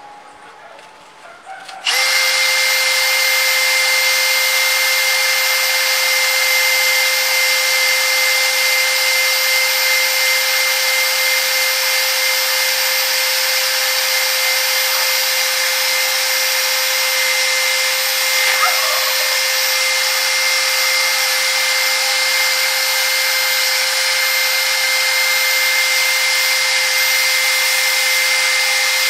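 Cordless drill spinning an abrasive wheel at steady speed, switched on about two seconds in, grinding the steel face of a Yamaha Axis 90 scooter's clutch part. The work takes out scoring that would otherwise wear the drive belt. The motor gives a steady whine over the hiss of the grinding.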